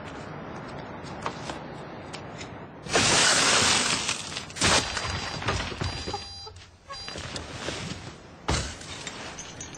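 A car side window being smashed: a loud burst of breaking glass lasting about a second, about three seconds in. It is followed by scattered knocks and a sharp thud near the end, over steady background noise.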